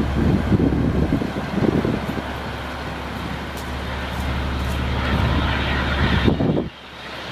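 Caterpillar 3126 diesel engine of a digger derrick truck running steadily, with gusts of wind buffeting the microphone. The sound drops off abruptly near the end.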